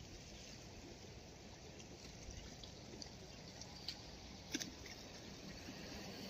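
Faint harbour water lapping and trickling among breakwater rocks, with a couple of small clicks about four and a half seconds in.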